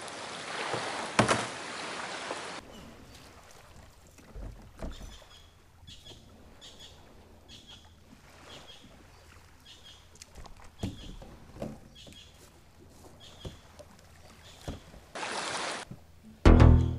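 Water sloshing as a sit-on-top kayak is pushed into shallow water, then scattered hollow knocks on the kayak's hull as it is boarded, with birds chirping in short repeated calls. Music starts near the end.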